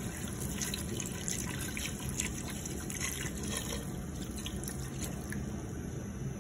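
Water pouring in a thin, steady stream into a cooking pot, trickling onto pieces of stockfish and cow skin and pooling in the bottom.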